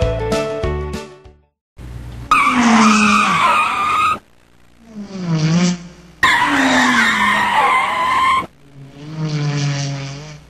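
Car tyre screeches, twice, each a couple of seconds long and cut in and out abruptly. Between them are engine sounds falling in pitch like cars speeding past. These are car chase sound effects laid over the picture, where only bicycles and people on foot are moving.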